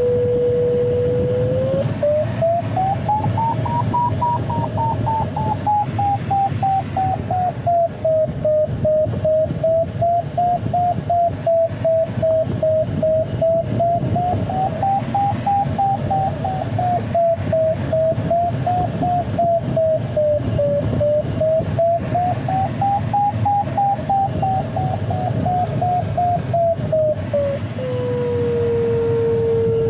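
Glider's electronic variometer sounding. A steady low tone turns, about two seconds in, into rapid beeping that rises and wavers up and down in pitch, which signals the glider climbing in lift. Near the end the beeping drops back to a steady low tone. Steady airflow rushes in the cockpit underneath.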